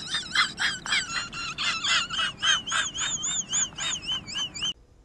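High-pitched, sped-up chipmunk-style singing in quick repeated syllables, about four or five a second, with a warbling pitch. It cuts off suddenly near the end.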